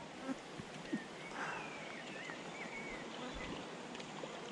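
Quiet riverside ambience: a steady low hiss with a few faint chirps about a second and a half in, and a couple of light taps.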